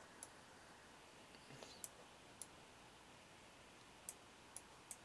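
About six faint computer mouse clicks, spaced irregularly, over near silence.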